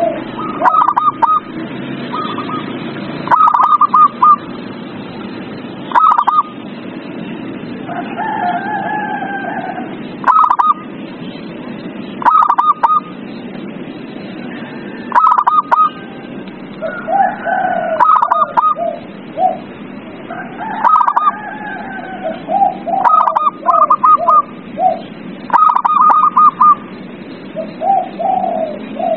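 Zebra doves (perkutut) singing, with clusters of short, rapid high coos repeating every second or two and some longer calls in between, over a steady background hiss.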